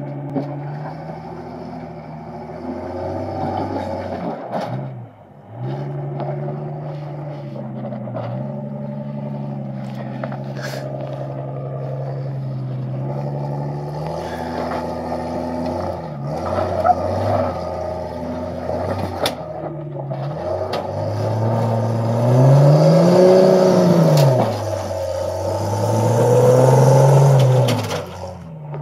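Built 4.0-litre straight-six of a 1988 Jeep Comanche pickup rock crawling, held at low revs with a short dip about five seconds in, then revved up and back down twice near the end as it climbs over ledges. Occasional sharp clicks and knocks.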